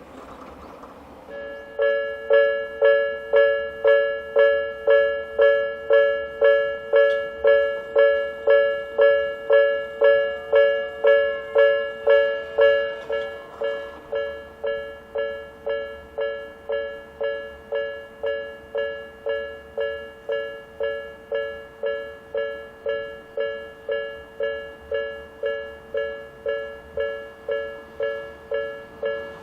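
Japanese railway level-crossing warning bell: an electronic two-tone ding repeating about twice a second. It starts about two seconds in and drops noticeably in volume a little before halfway, then keeps ringing at the same pace.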